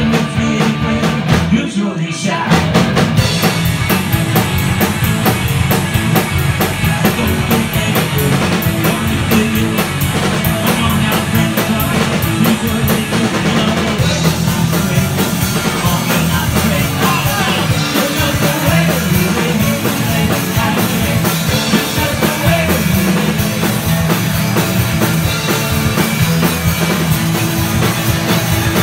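Punk rock band playing live: electric guitar, bass and drums with sung vocals. The band drops out briefly about two seconds in, then comes back in at full volume.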